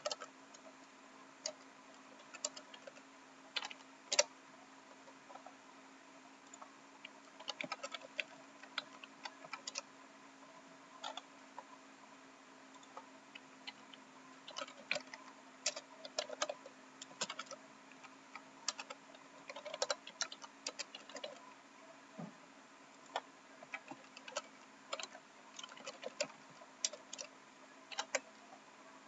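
Computer keyboard keys clicking as someone types, in irregular runs with short pauses between them.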